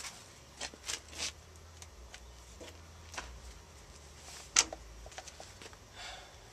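Scattered light clicks and knocks from someone moving around a motorcycle and getting on it, with one sharp click about four and a half seconds in. The engine is not running.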